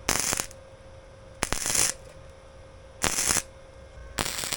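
Welder laying four short tack welds on a metal roof patch, each a crackling burst of about half a second with pauses of about a second between them.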